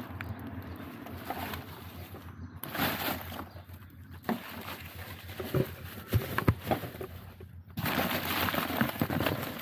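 A pigeon cooing amid close-up rustling and short knocks.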